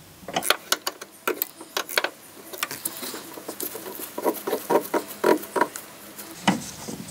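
Irregular light metallic clicks and scrapes of a spanner and gloved fingers working the hydraulic line's nut loose at a clutch master cylinder, with a quicker run of clicks in the second half.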